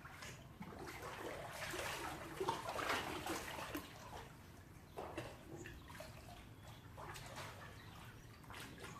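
Swimming-pool water splashing and sloshing, irregular and loudest about two to three seconds in.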